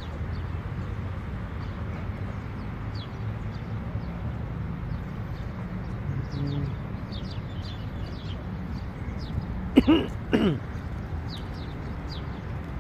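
Small birds chirping faintly over a steady low rumble outdoors, with two loud, short cries about ten seconds in, half a second apart.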